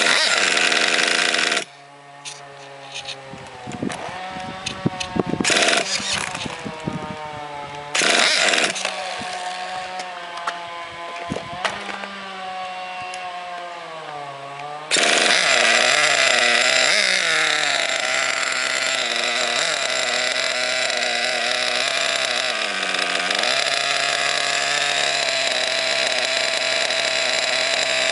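Small .21 nitro engine of an RC monster truck being spun over by an electric starter wand in short loud bursts, then catching and running with a wavering, uneven idle. About fifteen seconds in it settles into a louder, steady run.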